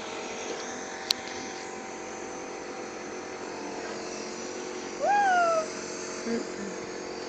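A nebulizer compressor runs with a steady buzzing hum. A single sharp click comes about a second in. About five seconds in, a child makes a short, high whine that rises and then falls.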